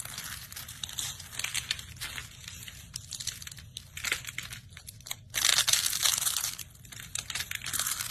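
Close, crisp crinkling and crunching in uneven bursts, with a louder stretch about five and a half seconds in.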